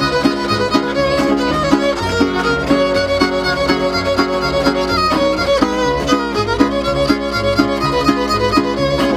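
Instrumental background music: a fiddle melody over a steady plucked beat.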